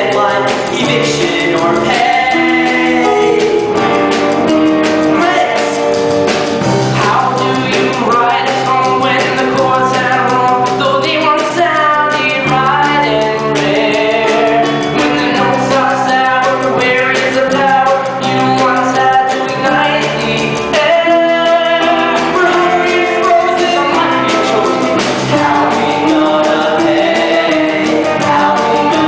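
Live stage-musical number: several voices singing together over rock-band accompaniment.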